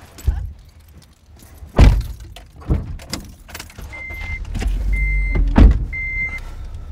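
Car doors opening and slamming shut in a series of thuds, the loudest near the end. From about four seconds in, the car's warning chime beeps about once a second, and a low engine rumble sets in.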